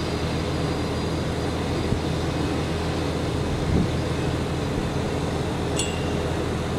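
Airbus A320 jet engines running at taxi power: a steady, even engine noise with a low hum that holds level throughout. A single short high click sounds about six seconds in.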